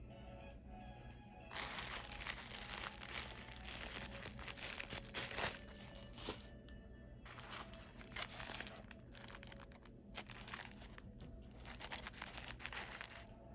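Packaging being torn open and crinkled by hand in irregular crackling bursts, with a short pause about halfway through, over background music.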